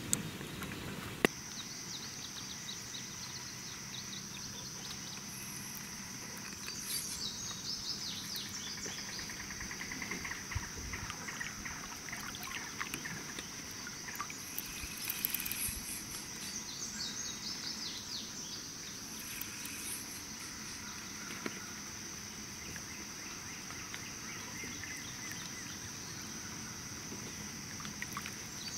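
Insects droning in one high, even tone that sets in about a second in, with birds chirping now and then over it.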